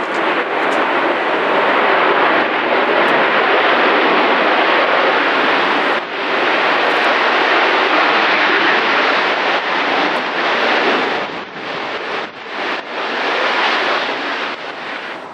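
Boeing 737-800's CFM56 jet engines running loudly as the airliner rolls along the runway: a steady rushing jet noise that wavers and begins to fade in the last few seconds.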